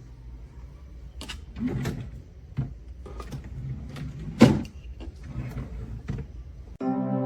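A series of irregular clicks and knocks over a steady low hum, the loudest knock about four and a half seconds in; music starts abruptly near the end.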